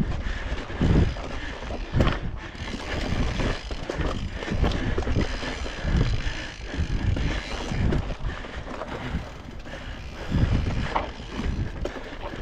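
Mountain bike ridden over a dirt forest trail: tyres rolling on loose ground and the bike rattling, with irregular low thuds as it hits bumps and roots, and wind rushing over the microphone.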